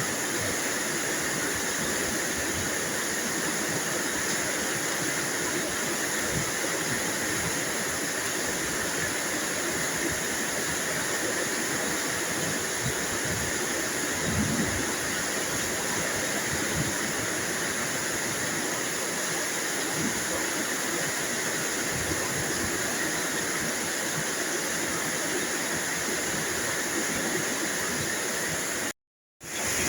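Steady rain falling, a continuous even hiss, which cuts out for about half a second near the end before resuming.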